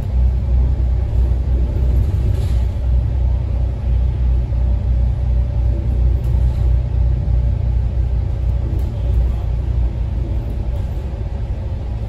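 Steady low rumble of a bus engine and running gear, heard from inside the passenger cabin, with a faint steady hum above it.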